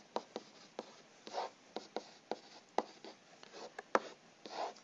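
Handwriting with a pen or stylus on a writing surface: a string of light, irregular taps and a few short scratching strokes as an equation is written out.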